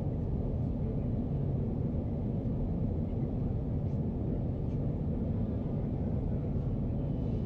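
Steady low rumble inside the cabin of a Boeing 737 airliner in flight on approach: the engines and the air rushing past the fuselage.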